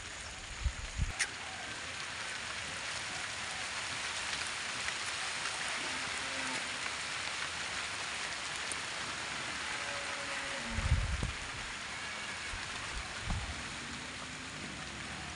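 Steady hiss of rain falling, with a couple of brief low bumps about a second in and again near eleven seconds.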